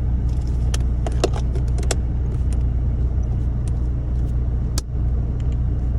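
Plastic console trim clips being pressed into place by hand: a run of short clicks and knocks, most in the first two seconds and one more near the end, over a steady low hum.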